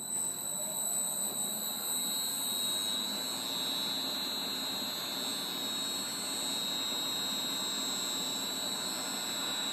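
A 3 hp milling-machine motor driven by a frequency inverter, running steadily after being started, with a steady high whine over its hum.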